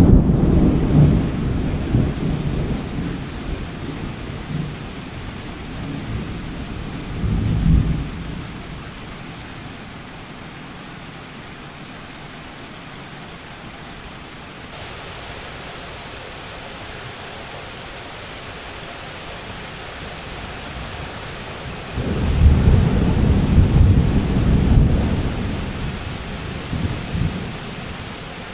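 Thunder rumbling and fading over several seconds, with a short low crash about seven seconds in, over steady heavy rain. The rain grows heavier about halfway through, and a second loud thunder rumble starts suddenly near the end and dies away over about five seconds.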